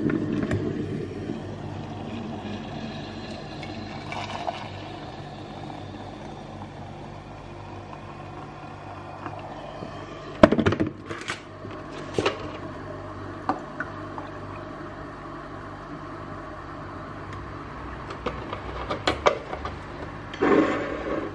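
Kitchen-table sounds over a steady low hum: a few sharp clinks and knocks around the middle, then milk poured from a carton into a ceramic mug near the end.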